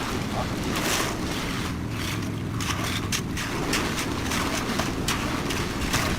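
A concrete mixer's engine running steadily, with short sharp clatters over it every so often.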